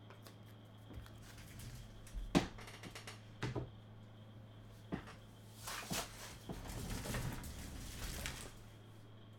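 Tabletop handling of trading cards and their packaging: a few sharp taps and knocks, then a couple of seconds of rustling, over a steady electrical hum.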